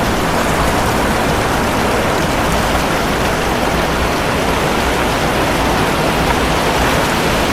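Steady, dense rush of water.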